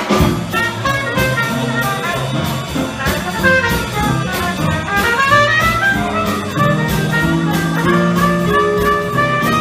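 Live swing band music: a trumpet plays the lead line over a rhythm section of piano, upright bass and drums keeping a steady beat.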